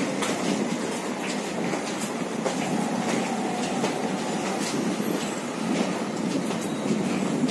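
Railway goods wagon on the track: a steady rumble with irregular sharp clicks of steel wheels on the rails.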